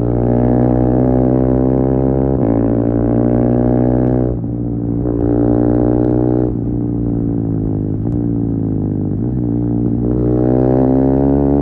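KTM Duke 390 single-cylinder engine with an Akrapovic slip-on exhaust and de-cat pipe, ridden under changing throttle. Its pitch drops and rises several times, with a brief lull a little after four seconds in and the revs climbing near the end.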